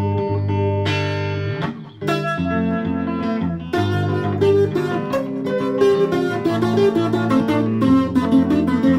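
Electric guitar being played: held chords ringing, a short break about two seconds in, then picked single notes and arpeggios that grow busier from about four seconds on.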